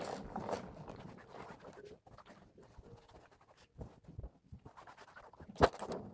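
Faint scattered knocks and handling sounds, with one sharp knock about five and a half seconds in.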